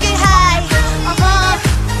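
Hip-hop beat between vocal lines: deep bass drum hits that fall in pitch, about two a second, under a wavering high melody line.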